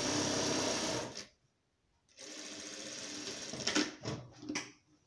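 Sun Special industrial straight-stitch sewing machine stitching fabric strips onto a rug in two steady runs, stopping for about a second between them. A few sharp knocks follow near the end.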